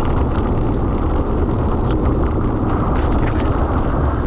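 Steady wind buffeting on the microphone of a moving mountain bike's camera, mixed with the rumble and light rattle of the bike's tyres rolling over a dirt-and-gravel road.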